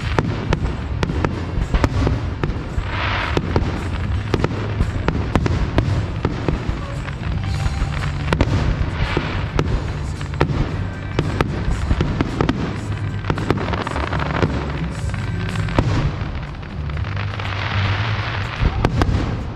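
Fireworks display: a steady run of sharp bangs and deep booms from shells bursting overhead, with spells of crackling from crackle shells a few times, the longest near the end.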